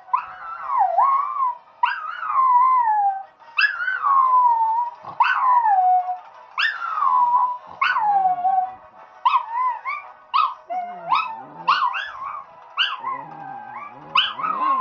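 A Chihuahua and a Yorkshire Terrier howling along to TV theme music. There is a string of howls that each start high and slide down in pitch, about one a second, and they break into shorter, quicker yips in the second half.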